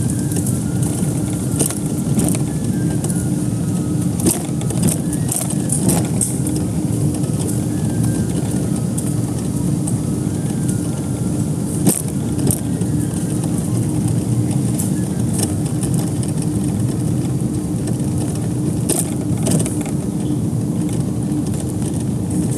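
A steady low mechanical rumble with a constant hum, and light footsteps on pavement clicking over it.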